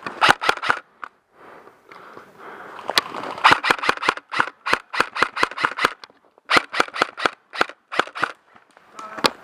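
Airsoft rifle firing rapid single shots, sharp clicks about five a second, in three strings: a short one at the start, a longer one from about three and a half seconds, and another after a brief pause, with a lone shot near the end.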